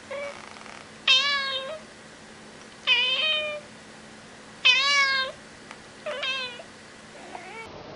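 Domestic cat meowing repeatedly: four loud meows, each about half a second long, with a fainter one at the start.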